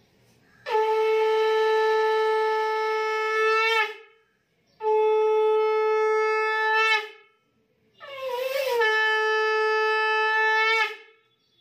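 Conch shell (shankha) blown three times, as in Hindu household worship: three long steady notes of about three seconds each, the third wavering in pitch as it begins.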